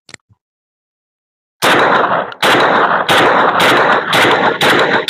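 Dağlıoğlu FD-47 .410-bore semi-automatic shotgun firing a rapid string of shots off its seven-round magazine, one about every half to three-quarters of a second, starting about a second and a half in. The sound carries on loudly between the cracks. The gun cycles round after round without a jam.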